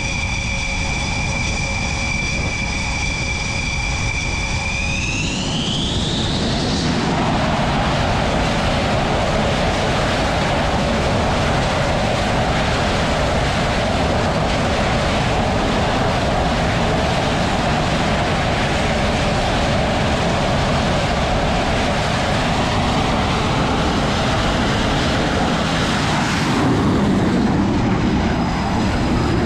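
Dassault Rafale's twin turbofan jet engines running on a carrier catapult: a steady whine that rises in pitch about five seconds in as the engines spool up to launch power, then a loud, even jet roar. The sound changes abruptly near the end.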